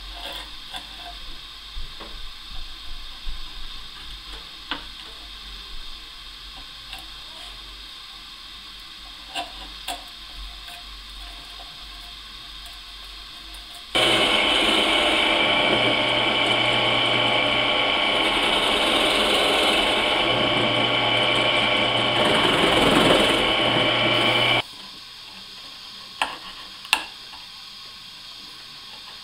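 Light taps and scrapes of a hand chisel working a groove in wood. About halfway through, a small trim router starts suddenly and runs steadily with a high whine for about ten seconds as it cuts along the groove, then cuts off, and the chisel taps resume.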